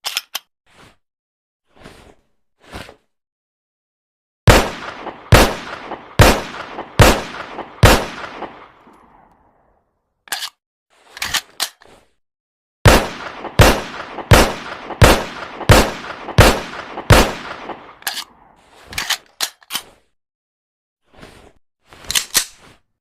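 1911 pistol firing: five shots a little under a second apart, each ringing out after it, then a few short metallic clicks, then a faster string of about eight shots, followed by more clicks.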